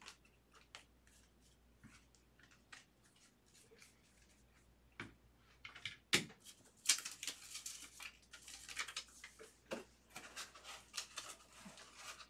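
Hands handling baseball trading cards: faint scattered clicks and taps as cards are sorted, a sharp knock about six seconds in as cards are set down on the table, then several seconds of busier rustling and clicking.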